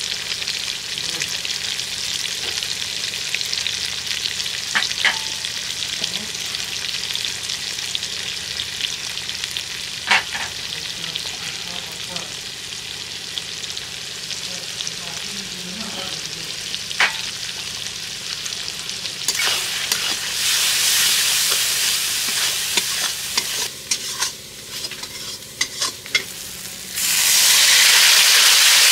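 Onion-tomato masala sizzling in hot oil in a steel kadai, with a few sharp metallic clicks against the pan. Near the end the sizzle suddenly jumps to a loud, steady hiss.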